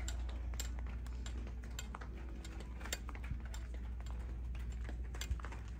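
Light footsteps clicking irregularly on a hard tiled floor over a steady low hum.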